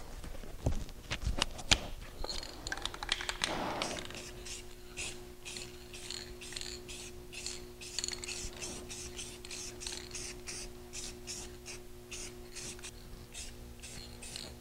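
Aerosol can of clear coat being worked over a wheel: a few clicks at first, then from about four seconds in a quiet, even run of short, high-pitched sounds about two or three a second, over a faint steady hum.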